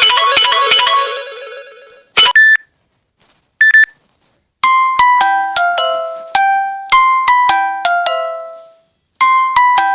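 Samsung Galaxy S7 ringtones played one after another. A busy melody fades out in the first two seconds, and two short double beeps follow. From about halfway a slower melody of single ringing notes plays, about two a second, and a new tune starts near the end.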